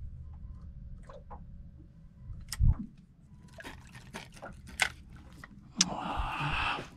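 Water sloshing against a small boat's hull over a steady low rumble, with a dull knock a little over two and a half seconds in, a few sharp clicks, and a louder wash of water near the end.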